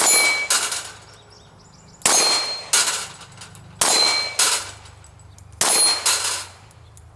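Metallic clanging in pairs, one strike followed by another about half a second later, each ringing briefly. The pairs repeat about every two seconds, four times.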